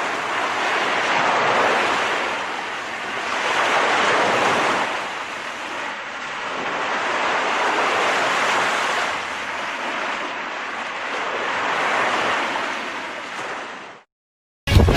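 Loud rushing storm noise of wind-driven water, swelling and easing every few seconds, then cutting off suddenly near the end.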